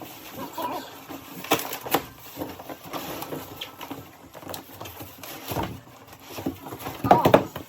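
Cardboard shipping box being handled, with irregular rustling and a few sharp knocks, two of them about a second and a half and two seconds in. Near the end comes a brief, loud, high voice-like sound.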